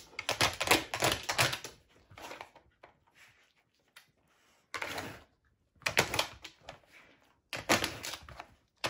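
Plastic tiles of a Nina Ottosson Challenge dog puzzle clacking and rattling as a dog nudges and slides them, in bursts of quick clicks with a quieter pause in the middle.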